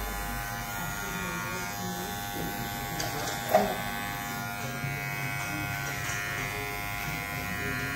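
Cordless electric hair trimmer buzzing steadily as it cuts along the hairline at the ear and nape. One short sharp knock about three and a half seconds in.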